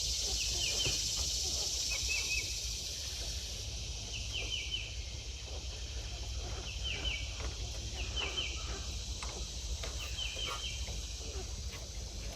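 A steady high insect drone, with a bird's short three-note chirp repeating about every two seconds, and faint clicks and knocks of hand work on a small-engine carburetor.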